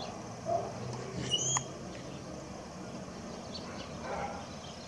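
Animals calling, excited by the partial solar eclipse: a few short low calls, and a single high chirp about a second and a half in.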